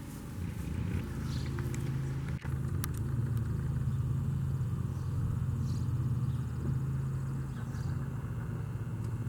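A motor vehicle engine running with a steady low hum that grows louder over the first second or so, with a few faint clicks.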